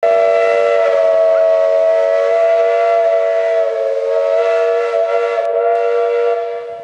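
Steam whistle of a 1947 H.K. Porter 0-6-0T switching locomotive, blown in one long, steady blast that sounds several notes at once as a chord, dying away near the end.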